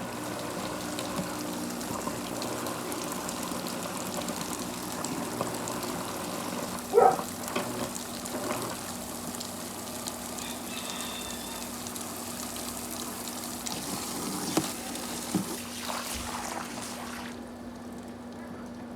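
Summer Waves above-ground pool filter pump running with a steady hum while water gushes out of its return into the pool; the pump is not yet full of water. A brief louder, higher sound cuts in about seven seconds in, and the rush of water drops a little near the end.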